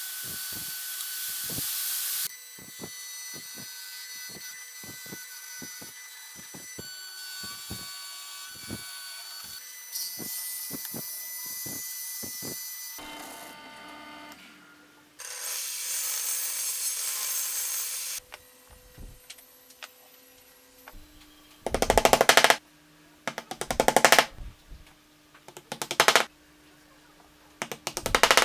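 Workshop power-tool sounds in changing stretches: hissing running noise with scattered clicks and taps, then four short loud bursts of a power tool, each well under a second, about two seconds apart near the end.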